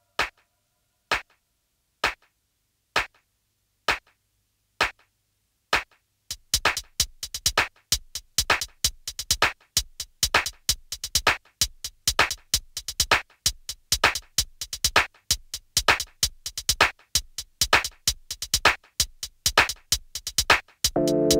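Minimal electronic techno/IDM track. Single sharp percussive clicks come about once a second, then from about six seconds in a dense, busy click rhythm takes over. A sustained synthesizer chord enters just before the end.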